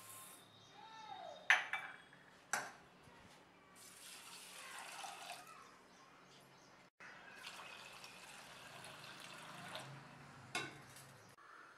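Water poured into a steel bowl of rice to soak it, in two pours, with a few sharp knocks.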